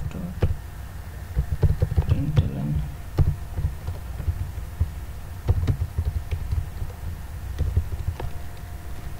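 Computer keyboard typing: irregular keystroke clicks over a low background rumble.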